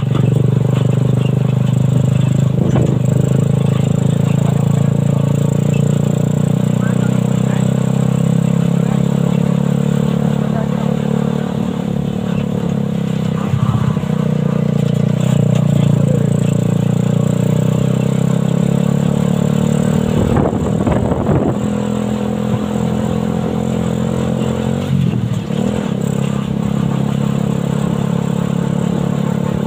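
Homemade buggy's Suzuki Satria FU 150 motorcycle engine, a single-cylinder four-stroke, running at a fairly steady speed while driving. Clattering knocks come about twenty seconds in and again near twenty-five.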